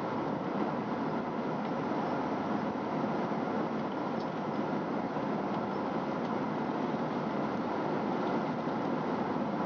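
Steady cabin noise of a Boeing 777 at cruise: an even rush of airflow and engine noise that holds at one level throughout.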